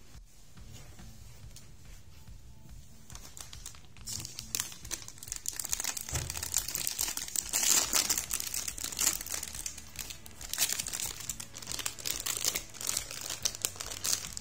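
Clear plastic bag around a model-kit runner being crinkled and pulled open by hand: a dense run of sharp crackles that starts about four seconds in.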